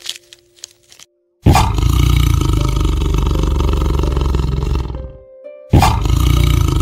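A large animal roaring twice: one long roar of about three and a half seconds, then a second roar that begins after a brief pause and carries on to the end. Soft background music plays in the first second.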